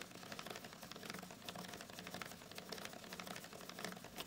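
Clear plastic spirograph gear turning inside its toothed ring, driven round by a pen, its teeth making rapid, irregular light clicking.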